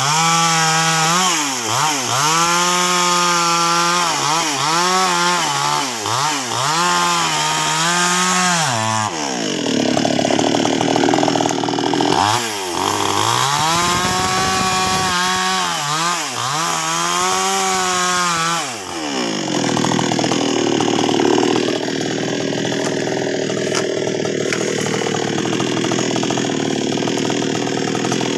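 NWESST 628 two-stroke chainsaw cutting sengon wood, its engine pitch repeatedly dipping under load as the chain bites and climbing back as it frees. Past the middle the engine note grows less distinct under a steady, noisier cutting sound.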